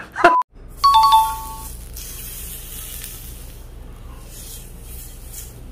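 A short two-note chime about a second in, then a thin slice of hanwoo beef sizzling steadily on a hot round cast-iron grill pan, a weak hiss rather than a loud sear.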